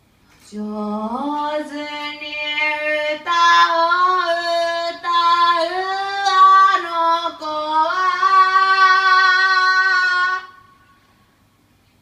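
A single voice singing unaccompanied, with long held notes; the first note slides upward about a second in, and the last long note stops about ten and a half seconds in.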